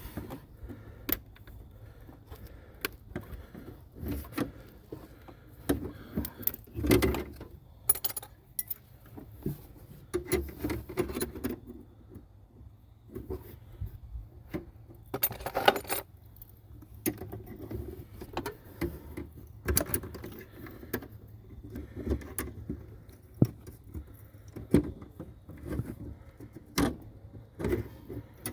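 Metal hand tools and parts clinking, clicking and knocking at irregular intervals during brake work, with a few louder knocks spread through.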